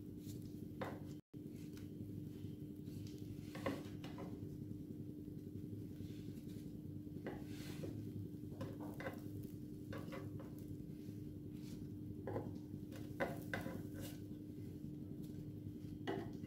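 Plastic slotted spatula scraping and tapping against a nonstick multi-cup pancake pan as cooked flatbreads are lifted out: a few light, irregular knocks and scrapes over a steady low hum.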